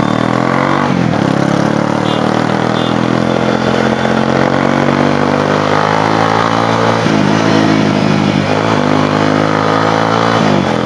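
Motorcycle engine running as the bike rides off. Its note dips and rises again a few times in the second half.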